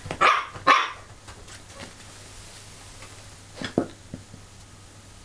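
Jack Russell terrier puppy barking: two sharp barks at the start, then two fainter ones a little over three and a half seconds in.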